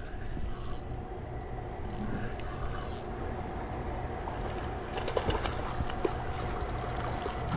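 Steady rush of spillway water. From about five seconds in, a cluster of sharp clicks and knocks.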